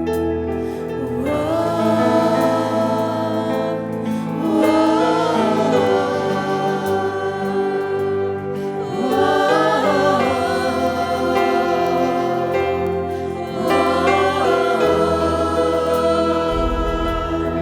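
Church worship music: held, sustained chords with voices singing long, sliding phrases over them, four phrases in turn.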